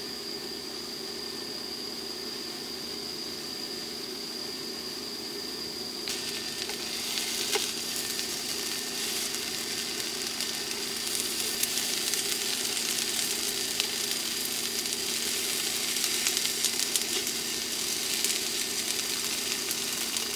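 Small fish frying in a non-stick frying pan: a light sizzle with crackles that starts about six seconds in and grows louder, over a steady hum and high whine.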